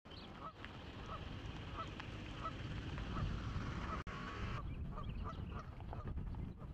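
A flock of Canada geese honking: repeated short calls over a steady low rumble.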